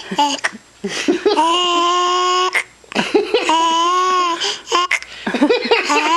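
A child with the hiccups laughing and making long, steady held vocal sounds: two of about a second each, with a third starting near the end, and short vocal bursts between them.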